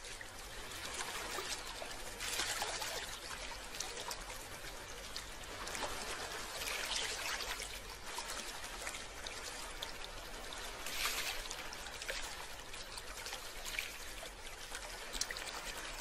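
Gentle ocean waves washing onto a beach, a steady hiss of surf that swells and fades about every four seconds.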